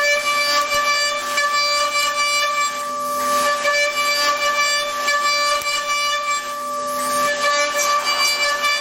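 CNC machine cutting: a steady high whine from the spindle and cutter, with many evenly spaced overtones. A hiss of cutting noise swells and fades about every three and a half seconds.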